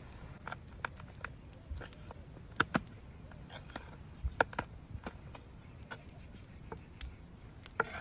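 Chef's knife slicing tomatoes on a wooden cutting board: irregular knocks of the blade against the board, some sharper than others, over a low steady rumble.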